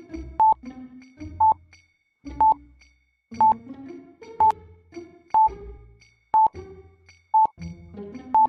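Countdown timer sound effect: a short high beep about once a second, over background music with a low pulsing beat.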